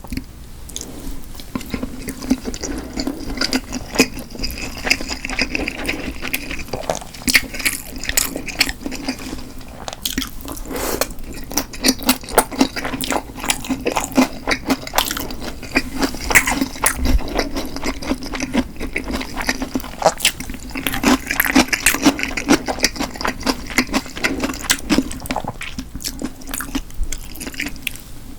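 Close-miked eating: wet chewing and mouth sounds, a dense run of small sticky clicks and smacks.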